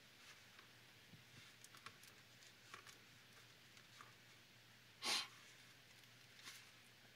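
Near silence, with faint small clicks of a plastic bottle and its cap figure being turned in the hand, and one short breathy burst of noise about five seconds in.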